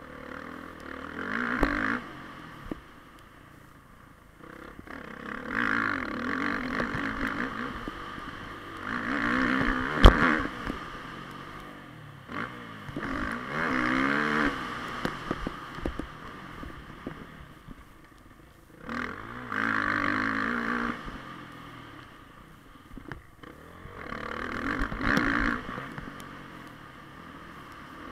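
Dirt bike engine heard from on the bike, revving hard and easing off in about six surges as it is ridden around a motocross track. A single sharp knock about ten seconds in is the loudest moment.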